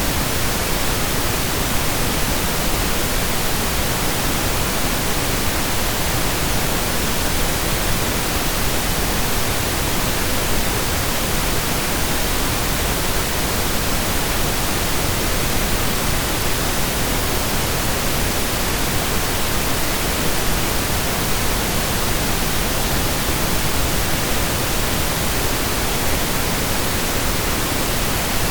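Synthesised stereo pink noise: a steady, even hiss with equal energy per octave, like rain or a waterfall, unchanging throughout.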